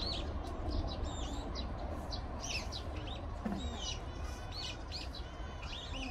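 Small birds chirping and twittering, many short calls overlapping throughout, over a steady low rumble.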